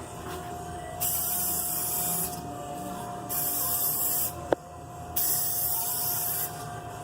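Spray hissing in three bursts, each about one to one and a half seconds long, with a single sharp click between the second and third. A faint steady whine runs underneath.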